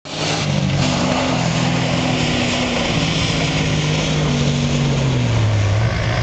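Jeep TJ Wrangler engine running hard under load as the Jeep climbs a steep dirt hill. The engine note holds steady, then drops in pitch about five seconds in.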